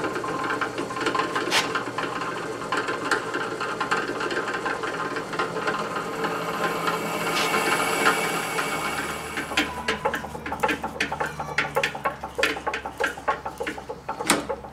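Drill press running with a twist drill cutting a bolt hole into an iron cylinder-head casting: a steady motor hum under a grinding cutting noise. From about ten seconds in there is a run of rapid sharp clicks and rattles.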